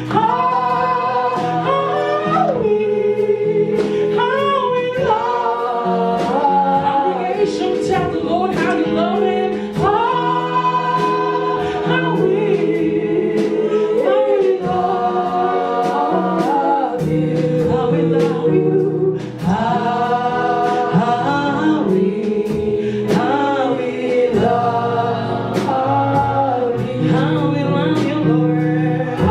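Choir and congregation singing a gospel worship song in long held lines, with instruments and a steady beat behind them.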